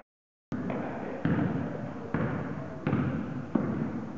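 A basketball being dribbled on a hardwood gym floor, thumping about every 0.7 s, amid the echoing noise of the gym. The sound drops out completely for about half a second at the start.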